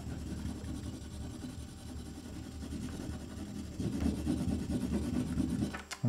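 Wax crayon being rubbed back and forth on paper pressed against a board as a fin is shaded: a low, scratchy rubbing that grows coarser about four seconds in.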